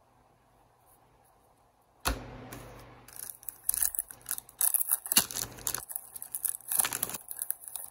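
Hockey card pack's wrapper being torn open and crinkled: a sudden rip about two seconds in, then several seconds of crackling and rustling that stops shortly before the end.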